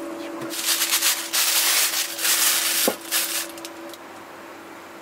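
Plastic piping bag rustling and crinkling as it is handled and opened over a cup, in several loud bursts over about three seconds, with a faint steady hum underneath.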